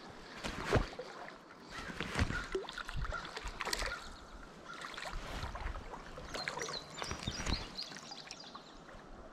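A hooked smallmouth bass splashing in shallow river water as it is played in close, in irregular splashes a second or two apart.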